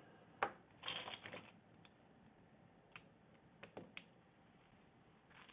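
Several light clicks and taps of small tools being handled at a repair bench: one about half a second in, a quick cluster around a second in, and a few more ticks around three to four seconds in.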